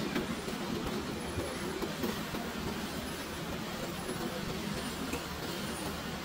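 Steady running noise of a moving electric cart.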